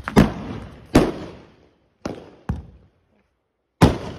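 Small firecracker bombs going off under a cardboard box: about five sharp, loud bangs at uneven gaps, each dying away quickly.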